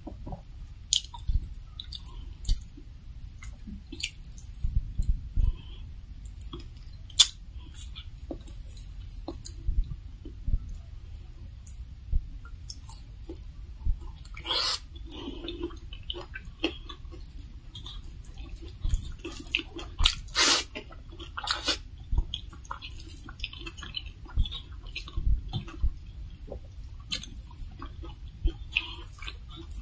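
Close-up chewing of rice and fried pork eaten by hand, with frequent sharp wet smacks and clicks from the mouth and from fingers mixing rice on a metal plate.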